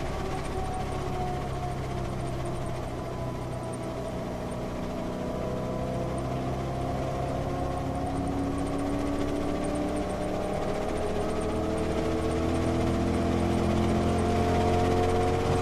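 Ford Mustang's engine with heavy tyre and road rush, picked up close to the front tyre. The engine note sinks as the car slows from about 90 mph for a corner, then climbs steadily under hard acceleration back up toward 5,000 rpm.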